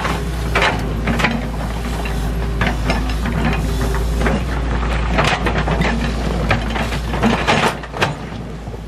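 Doosan wheeled excavator's diesel engine running under load while its steel bucket digs and dumps rocky soil, with stones clattering and knocking against the bucket and the pile throughout.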